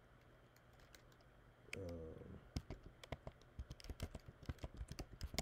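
Typing on a computer keyboard: a run of quick, irregular keystrokes begins about two and a half seconds in as a word is typed. Just before it comes a short hum of a man's voice.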